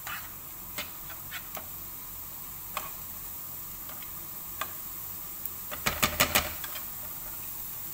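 Diced onion frying gently in olive oil over medium heat, a faint steady sizzle under scattered clicks of a utensil against the pan, with a quick run of louder clicks about six seconds in.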